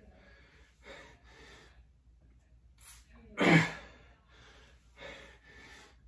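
A man's breathing under exertion during a resistance-band lift: one sharp, forceful exhale about three and a half seconds in, with softer breaths before and after it.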